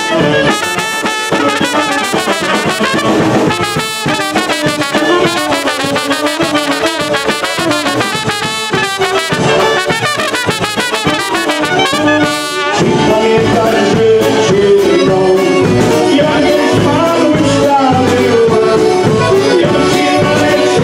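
Live polka band playing, with trumpet, clarinet and saxophone carrying the melody together. About two-thirds of the way through the horn passage ends and a man's voice comes in singing over the band.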